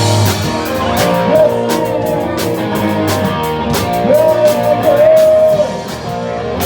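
Live rock band playing, with electric guitar over a steady drum beat. A held lead line bends in pitch through the middle of the passage.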